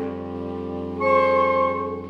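Saxophone sextet of three altos, two tenors and a baritone playing held chords over a sustained low baritone note; a louder chord in the upper voices comes in about a second in and fades near the end.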